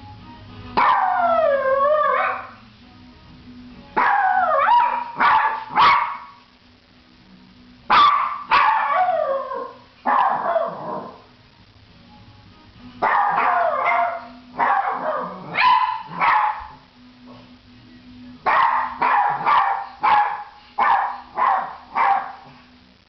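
Maltese dog barking and howling: a long wavering howl about a second in, then groups of sharp barks, some trailing off into falling howls. The sound of a dog in distress at being left alone in the house.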